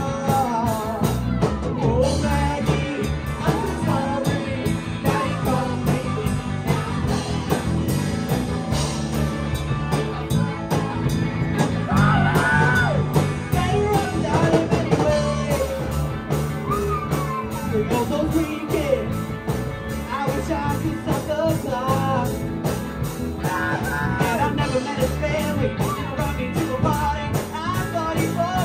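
Small rock band playing live: a sung lead vocal over electric guitar, bass and drums, with a steady beat.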